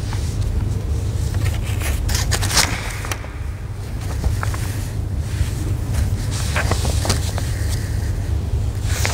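Steady low rumble of background room noise, with a few soft clicks and rustles of paper being handled.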